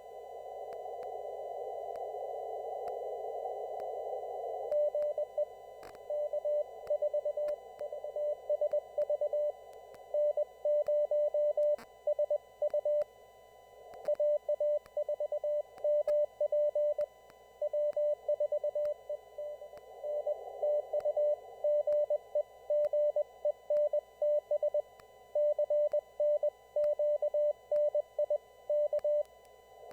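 Morse code (CW) heard on an amateur radio receiver on a traffic net: a single keyed tone sounding dots and dashes over a steady hiss of band noise. For the first few seconds there is only the hiss; the code starts about five seconds in and comes in runs of characters with short pauses between them.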